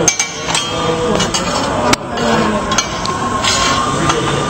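Metal cooking utensils clanking and tapping during cooking: a run of sharp, irregular metallic strikes.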